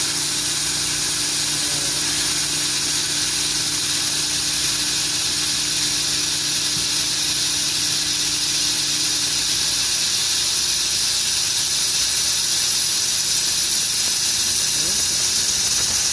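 CNC drilling machine working on a structural steel plate: a steady high hiss with a low machine hum beneath. One of the hum's tones drops out a little over halfway through.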